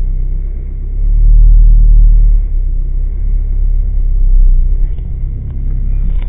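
Car engine idling, heard from inside the cabin as a steady low rumble that grows louder about a second in and eases back a second and a half later, with a few light clicks near the end.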